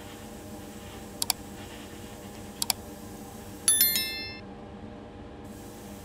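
Subscribe-reminder sound effects: two quick double mouse clicks, then a bright ringing notification-bell chime that fades within about a second. Underneath is a steady low hum and hiss.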